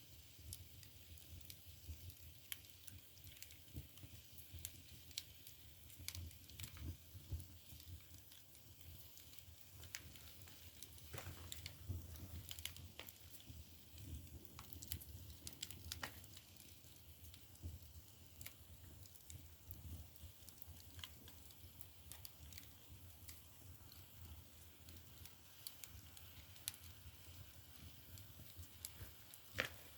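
Split bamboo firewood burning in an agungi firebox: scattered sharp crackles and pops, irregular throughout, over a faint low rumble.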